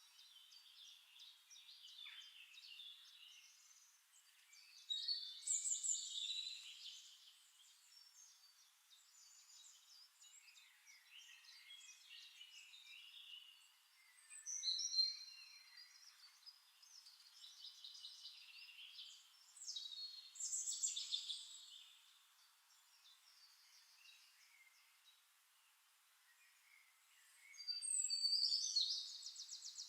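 Birdsong: small birds chirping and trilling in short phrases, with louder bursts about five, fifteen, twenty and twenty-eight seconds in.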